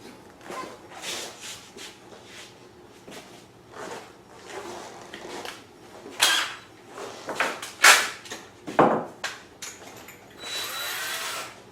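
Hand tools and parts being handled on a bench: scattered knocks and clatters. Near the end a cordless drill runs steadily for about a second.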